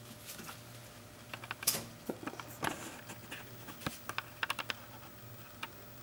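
Thermal paper on a cardboard backing being handled and lifted out of a microwave oven: irregular light taps, clicks and paper crinkles, the loudest about a second and a half in, over a faint steady hum.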